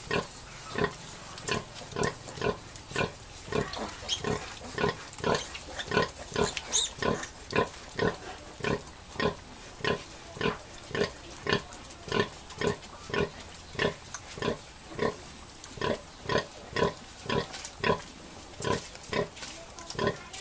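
Nursing sow grunting in a steady rhythm, two or three short grunts a second, while her piglets suckle. These are the sow's rhythmic nursing grunts, the call that goes with milk letdown.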